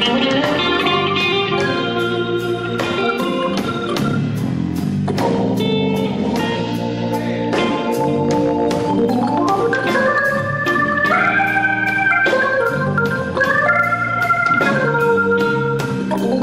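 Live band instrumental led by a Hammond-style electronic organ solo, played on a Roland stage keyboard, over a steady drum beat with ticking cymbals; the organ line climbs in stepped runs around the middle and again near the end.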